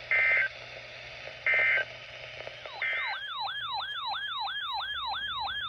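Three short warbling data bursts of an Emergency Alert System SAME header, about a second and a half apart, followed by an electronic siren-like alert tone that sweeps up and down about three times a second, announcing a new weather warning.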